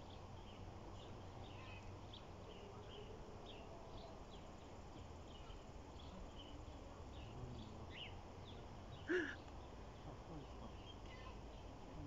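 Quiet rural outdoor ambience: small creatures chirping in short high chirps, a few a second, with one brief louder call about nine seconds in.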